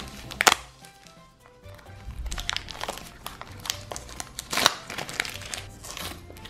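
Plastic Shopkins blind-pack packaging crinkling and crackling in the hands as it is handled and opened, in irregular sharp clicks, with one louder crackle about half a second in.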